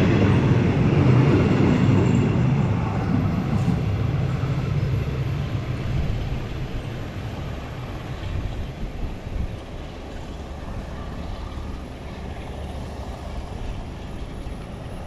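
Passenger train's coaches rolling along the rails, a low rumble that fades over the first few seconds as the train pulls away. A fainter steady rumble remains after it.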